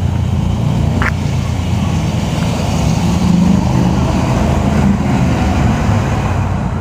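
Low, steady rumble of a helicopter approaching in the distance, growing a little louder about halfway through.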